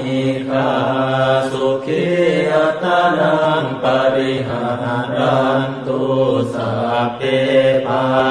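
Buddhist monk chanting Pali verses into a microphone in a steady, even recitation, one male voice holding level pitches with hardly a pause.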